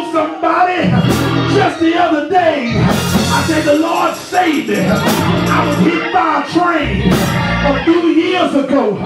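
Amplified male preacher's voice, chanted in a sung, tuneful cadence through a microphone. Behind it are church keyboard-organ chords that come and go in rhythm, with sharp percussive hits.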